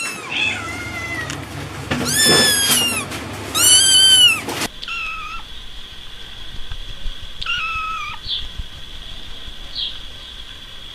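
Kittens meowing repeatedly in high, rising-then-falling cries, the loudest in the first half. Quieter meows and a couple of short chirps follow, over a faint steady high whine.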